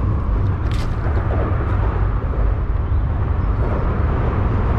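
Steady, loud, fluttering low rumble of outdoor background noise in an urban creek, with one brief splash about a second in as water falls from a plastic tray lifted out of the creek.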